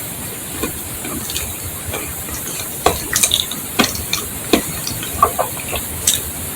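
Wet mouth sounds of someone eating a banana: scattered lip smacks and saliva clicks over a steady hiss, clustering about three to five seconds in.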